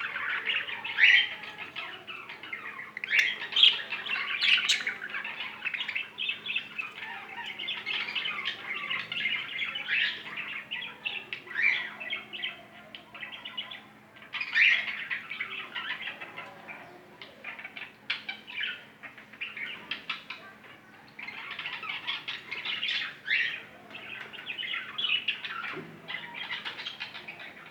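Lovebirds chirping and squawking in continual, overlapping chatter, with sharper louder calls every few seconds.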